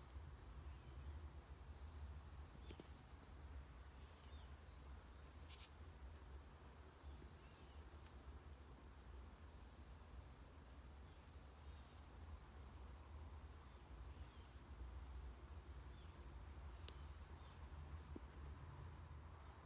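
Faint evening insect chorus of crickets: a steady high trill with short high chirps about once a second, over a low rumble.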